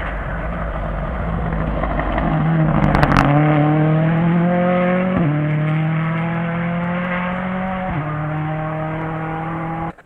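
Rally car engine accelerating hard past on a gravel stage, its pitch climbing steadily and dropping sharply twice at upshifts, loudest about three seconds in as it goes by.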